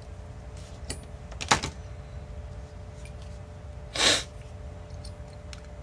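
Small clicks and one sharp knock about one and a half seconds in, then a short scuffing burst around four seconds: plastic case-shell parts and pliers being handled while a TS100 soldering iron is reassembled. A steady low hum runs underneath.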